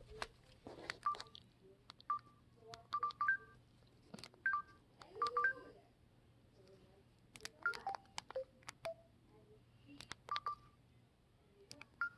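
Samsung Convoy 2 flip phone's keypad beeping as its buttons are pressed to move through the menus: short beeps, each with a plastic key click, coming in quick runs of two or three with pauses between.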